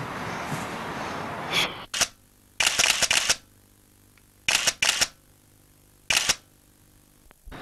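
Still-camera shutter clicks, several short bursts of clicking about a second or so apart, as photos are taken of a landed wels catfish. A steady outdoor hiss fills the first second and a half, then the background goes nearly silent between the clicks.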